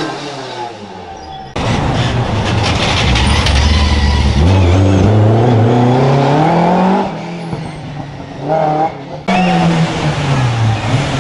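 Historic rally car engines at hard throttle on a stage, revving up and easing off in pitch. The sound switches abruptly about a second and a half in and again about nine seconds in, as one car gives way to the next.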